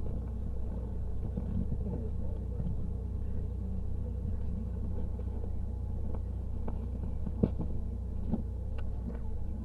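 Steady low hum and rumble with a faint murmur over it, and one sharp click about seven and a half seconds in.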